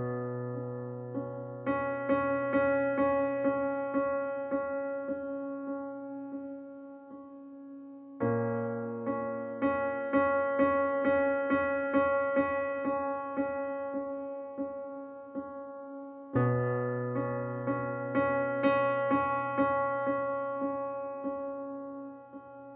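Background piano music: a gentle piece in phrases that start about every eight seconds, each opening on a held low note under a run of quick repeated notes.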